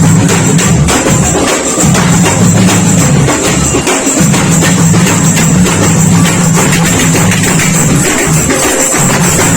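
Loud music with drums, tambourine-like jingles and sustained low notes that stop and start again.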